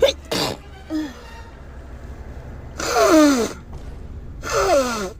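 A woman sneezing in a sneezing fit: short sharp sounds in the first half-second, then two loud drawn-out sneezes, each falling in pitch, about three and four and a half seconds in.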